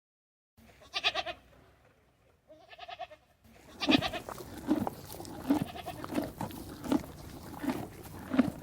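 Goat bleating: two separate bleats, then from about three and a half seconds a run of short bleats roughly every 0.7 s, as an added sound effect.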